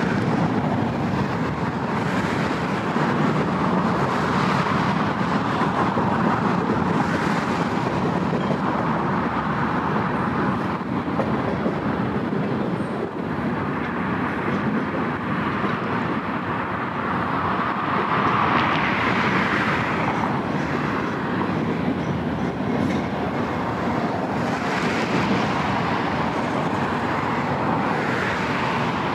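Union Pacific freight train's cars rolling past: a steady rush of steel wheels on rail that swells and eases every few seconds as tank cars, centerbeam flatcars and autoracks go by.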